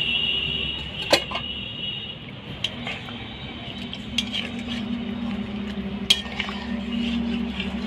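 A metal ladle stirs the mutton trotter broth in a large aluminium kadai, knocking against the pan with several sharp clinks spread through.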